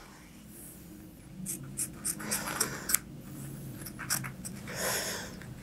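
Small fine-tipped scissors snipping through thin cotton appliqué fabric close to a line of stitching, trimming away the excess. There are several short, crisp snips, with rustling of the fabric between them.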